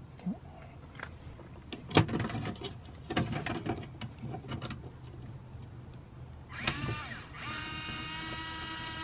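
Knocks and clicks as a plastic speaker adapter ring is handled against a car door panel. Then a small cordless screwdriver whirs briefly and runs at a steady whine for the last second and a half, driving a screw into a spring clip.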